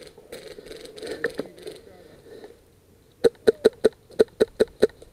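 Rustling through dry brush, then about two thirds of the way in a quick string of sharp shots from a VFC SCAR-L airsoft electric gun fired semi-auto, about four a second.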